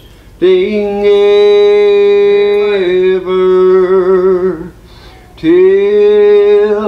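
A man singing a slow hymn in long drawn-out notes. The first note is held for several seconds, steps down and wavers in vibrato before a short break, and a new note swells in about two-thirds of the way through.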